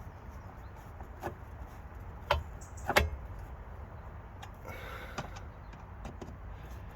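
Plastic speaker grille being handled and pressed onto the rear door's trim panel: a few sharp plastic clicks and knocks, the loudest about three seconds in, then brief rustling and a couple of lighter clicks.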